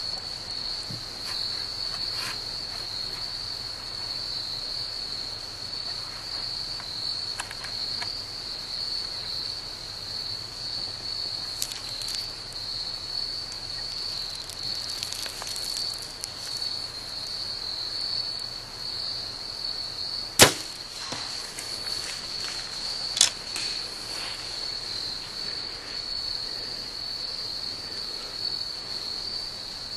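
A bow being shot: one loud, sharp snap of the string's release about two-thirds of the way in, followed about three seconds later by a second, softer sharp crack. A steady, high-pitched insect trill runs underneath throughout.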